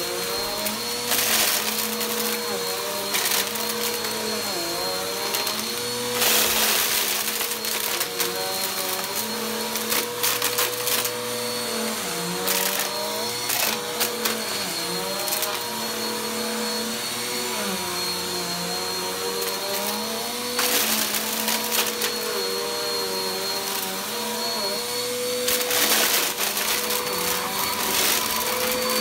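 Upright bagless vacuum cleaner running on carpet, its motor hum dipping in pitch and recovering again and again as it is pushed and pulled over the pile. Crunchy debris and lint crackle loudly several times as they are sucked up.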